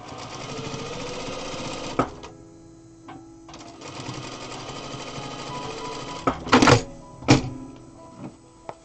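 Zoje ZJ9703AR industrial sewing machine stitching in two short runs, with a sharp click about two seconds in between them. Near the end come two loud short bursts as the work is handled at the machine.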